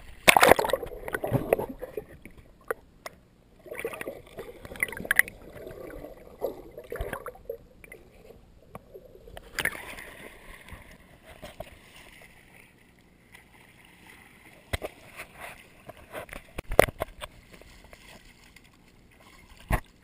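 Shallow water sloshing and splashing close to a waterproof action camera's microphone as a dog wades beside it. Several sharp knocks are scattered through it, the loudest near the end.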